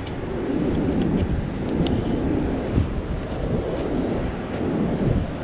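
Strong wind buffeting the microphone in gusts, with surf washing behind it, and a few faint clicks.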